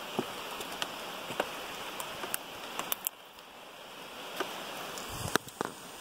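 Scattered clicks and light knocks of hands and pliers working a hook free from a catfish's mouth, with a quick pair of clicks about three seconds in and a louder thump a little after five seconds. Underneath runs a steady hiss of flowing river water.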